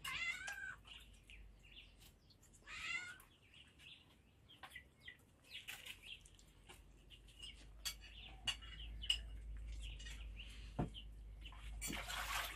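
Faint chirping and calling of birds, many short calls with some louder ones at the start and about three seconds in. A few light knocks and clicks come in between.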